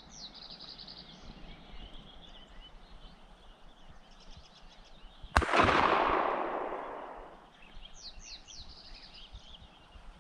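A single gunshot about five seconds in, sharp and loud, its echo rolling away over about two seconds. High bird calls and chirps sound before and after it.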